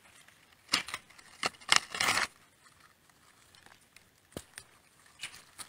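Digging and scraping through dry, pebbly soil: a cluster of rough, scratchy rustles about a second in, then a few small clicks of grit and pebbles.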